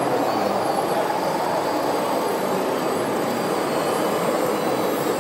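Radio-controlled Komatsu WA470 wheel loader model running steadily as it drives with a full bucket of soil.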